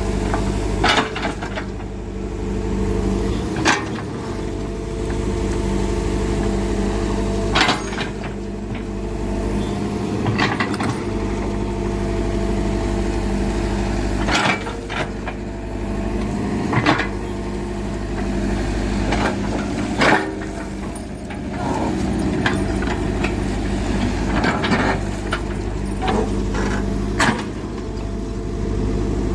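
Diesel engine of heavy earthmoving equipment running steadily, with sharp knocks every few seconds.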